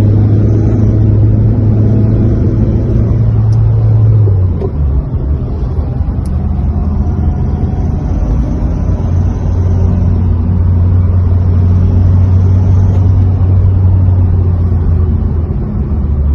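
Renault 1.5 dCi (K9K) four-cylinder diesel engine running with a loud, steady low drone that drops slightly in pitch about four seconds in, recovers a couple of seconds later, and dips again near the end. This is the knock noise at a particular rpm that returned after an engine rebuild, which the mechanic suspects comes from the injectors' changed flow rate.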